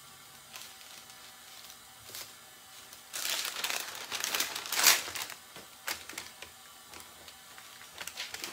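A large white sheet being handled and folded by hand, rustling and crinkling for about two seconds, loudest near the middle. A few light clicks and knocks before and after.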